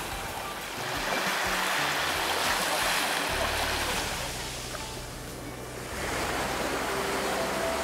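Small sea waves breaking and washing up on a sandy shore, the surf swelling and easing. Background music plays underneath, its low notes changing twice.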